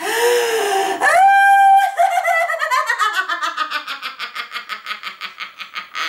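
A woman doing lion laughter, the laughter-yoga exercise with mouth wide open and tongue out: a breathy outburst, then a held high-pitched shriek about a second in, then a long run of rapid laughter that falls in pitch and fades.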